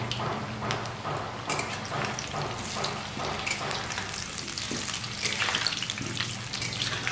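Whole peeled potatoes sizzling and crackling in hot oil in a kadhai while a spatula scrapes and knocks against the pan, turning them and cutting one in half. The clatter and crackle are loudest about five seconds in.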